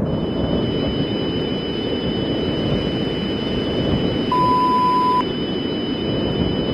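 Emergency alert broadcast audio: a steady rumbling static noise with two faint, high, steady whining tones. A single clean beep about a second long sounds a little past the middle.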